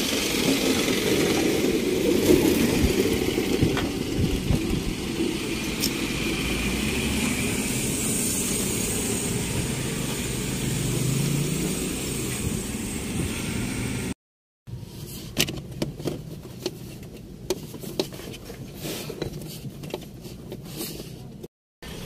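A car engine running steadily, its pitch rising briefly near the middle. After a cut come a quieter stretch of light clicks and handling noises from hands working on the door wiring connector.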